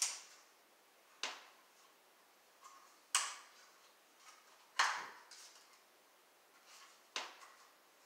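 Sharp plastic clicks and snaps from a hardwired smoke detector being handled while its battery-activation tab is worked at. There are five louder clicks a second or two apart and a few fainter ones between them.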